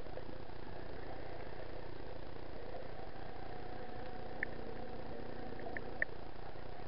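Underwater sound: a steady, muffled wash with the drone of a boat engine carried through the water, whose hum cuts off about six seconds in. A few short, high chirps come in the second half.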